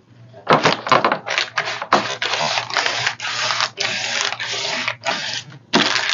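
Repeated scratchy rubbing strokes on a decoupage tray, about two a second, as the edges of the applied napkin are worked over.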